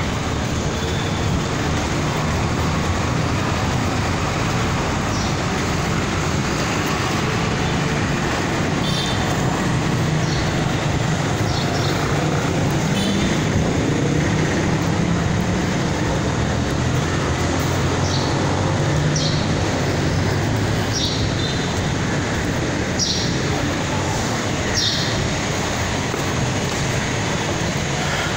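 Steady road traffic noise from a highway, a continuous rumble with short light ticks now and then.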